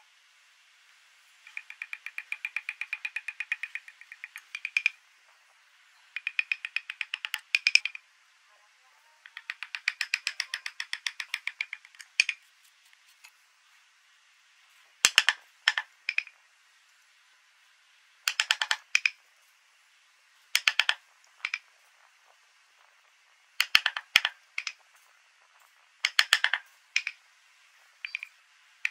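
Hand carving chisel scraping and paring wood, in runs of fast dry ticking strokes with short pauses between, and a few shorter, sharper cuts in the second half.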